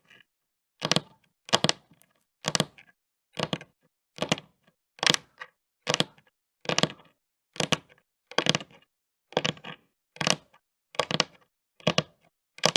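Long fingernails tapping and clicking in a steady rhythm, one short sharp clatter a little under every second, about fifteen in all.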